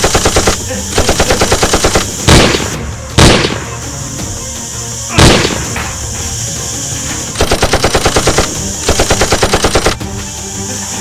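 Bursts of rapid automatic gunfire, about ten shots a second, four bursts in all, with three single heavy gunshot bangs between them, laid over the Nerf blaster action as gunfire sound effects.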